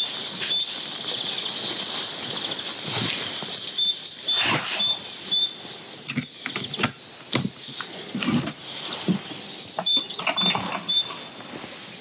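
Birds chirping over and over with short high notes, while footsteps in grass and knocks and clicks come from a metal latch being turned on a wildlife hide's door and the door being opened.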